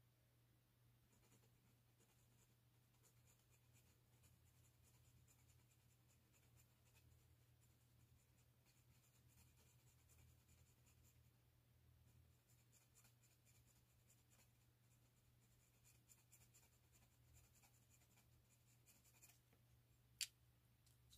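Faint, rapid scratching of a pastel pencil shading on paper, stroke after stroke, with a short pause midway and stopping shortly before the end. Then a single sharp click, all under a faint steady low hum.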